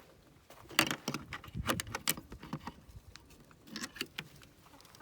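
Chicken coop nest box being opened to check for eggs: a quick run of rattles and knocks about a second in, with a few more knocks near the end.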